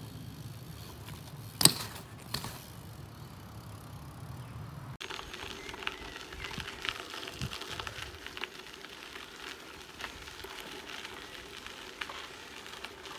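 A BMX bike on a concrete skatepark: a sharp clack about one and a half seconds in, with a smaller knock shortly after. From about five seconds in, bicycle tyres crunch and rattle over a gravel path.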